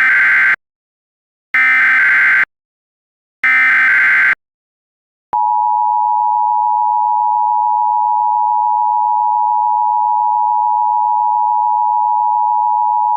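Emergency Alert System tones: three one-second bursts of screeching data (the header that opens the warning), about a second apart, then the steady attention tone, held for about eight seconds and cut off suddenly.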